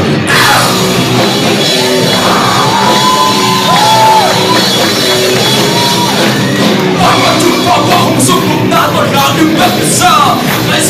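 Live rock band playing: a male singer singing into a handheld microphone over electric bass, electric guitar and drums, holding a few long notes.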